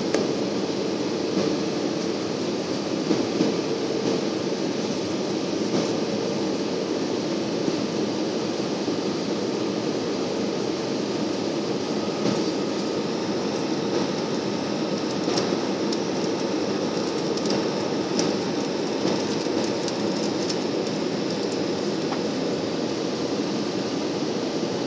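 Steady cabin noise inside a jet airliner on its night approach to landing: the rush of air and the turbofan engines, with a steady low hum running under it.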